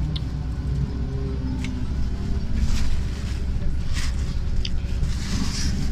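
Cabin noise of a BKM 32102 trolleybus on the move: a steady low rumble of the running gear and road under a faint steady hum, with a few short clicks and rattles from the body.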